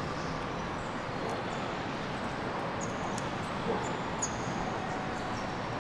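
Steady outdoor background noise from a city spread below, with a few short high chirps about three to four and a half seconds in.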